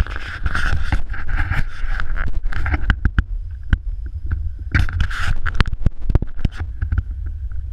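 Small quadcopter's motors and propellers buzzing with a steady whine, heard through a GoPro mounted on the craft. Heavy rumbling buffeting on the microphone and many sharp knocks and clicks run through it.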